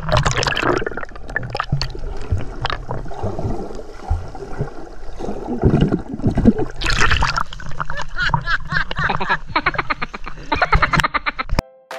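Seawater sloshing, splashing and gurgling against an action camera held at the water's surface as it dips under and comes back up, with a louder splash about seven seconds in. The sound cuts off suddenly just before the end.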